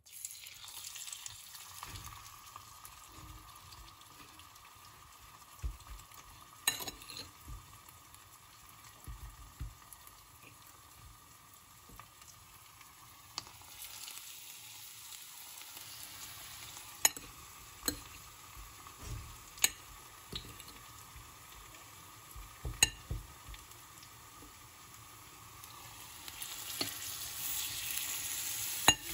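Oil sizzling in a frying pan as brown-sugar-coated banana halves fry, with sharp clicks of a metal fork against the pan as they are turned. The sizzle grows louder near the end.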